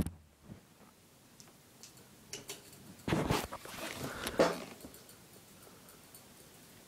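A sharp click as the room light is switched off, then a few faint ticks and about a second and a half of rustling handling noise in the dark.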